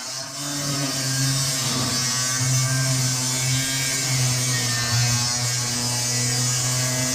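Handheld grinder with a thin cutoff wheel cutting through the sheet steel of an old pickup's cab back panel. The motor runs at a steady pitch under the hiss and rasp of the wheel on the metal, growing louder over the first second as the wheel bites in, then holding steady.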